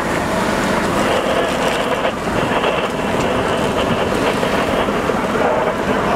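Loud, steady fireground noise: the diesel engines of fire apparatus running, with a faint steady tone through it and no sharp knocks.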